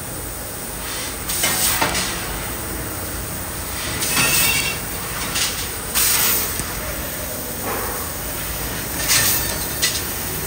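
CNC laser cutting machine cutting a pattern into a steel sheet: a steady mechanical hiss with louder bursts of hissing every few seconds as the cutting head pierces and cuts each opening.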